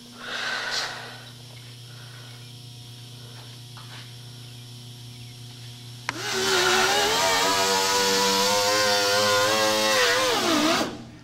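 A handheld power tool switches on about six seconds in and runs with a steady high whine and hiss for about five seconds before winding down.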